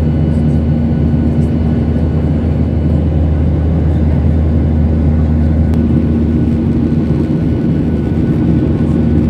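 Steady drone of a jet airliner in flight heard from inside the cabin, engine and airflow noise with a low hum in it.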